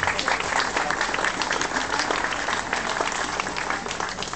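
Audience applauding, a dense patter of hand claps that thins out near the end.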